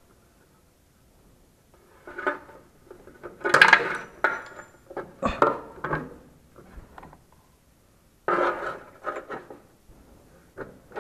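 Metal tools and a nut clinking and scraping against the steel of a Vespa's front shock mounting, in several short bursts of clatter with pauses between. The sound comes from a fumbling attempt to start a top-plate nut of the front shock absorber on its stud in a cramped spot.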